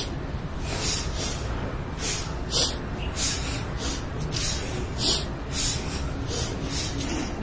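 Sharp, forceful breaths through the nose, about two a second, timed to a standing side-to-side arm-swinging twist.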